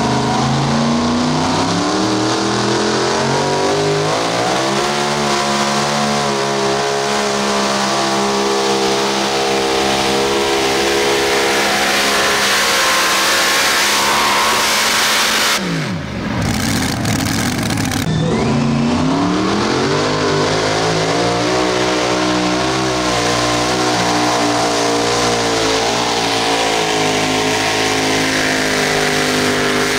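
Mini modified pulling tractor engines running at full throttle under load as they drag the sled. The first engine climbs in pitch off the line and holds a high, steady howl. About halfway through there is a short drop and sweep in pitch, then a second tractor's engine revs up and holds at full power.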